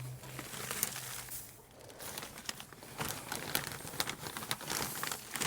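Chopped straw being shaken out of a bag and scattered, rustling and crackling, with more crackling from about halfway through.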